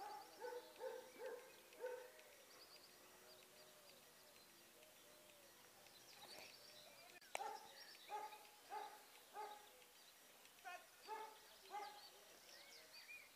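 A dog barking in three runs of about five barks each, roughly two a second: near the start, from about seven seconds in, and near the end. A single sharp knock comes just as the middle run begins.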